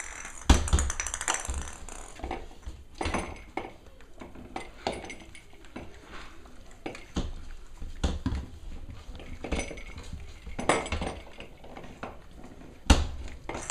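Cavalier King Charles Spaniel puppies playing on a tile floor among plastic toys: irregular clicks, taps and knocks of claws and toys on the tiles, with two louder knocks, about half a second in and near the end.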